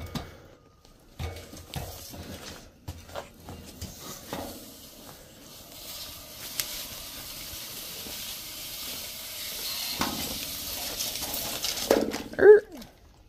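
Black poly drop pipe and pump wire being fed by hand down a steel well casing as a submersible pump is lowered. Scattered knocks and rubs come first, then a steady scraping hiss of the pipe sliding over the casing rim and through gloved hands. A brief voice sound comes near the end.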